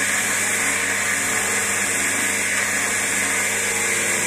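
Wood lathe running steadily with a skew chisel held against the spinning walking-stick blank: a constant motor hum under a steady hiss of the tool on the wood.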